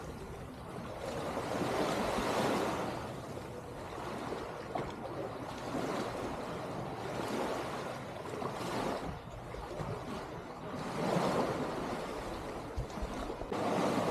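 Small waves washing in on a sandy beach among rocks, the surf swelling and fading every few seconds.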